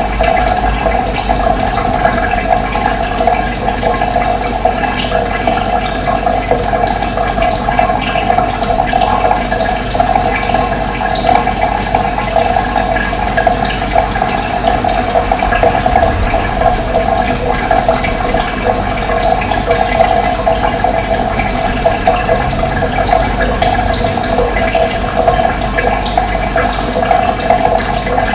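Running water rushing steadily, with occasional faint, brief high chirps of birds over it.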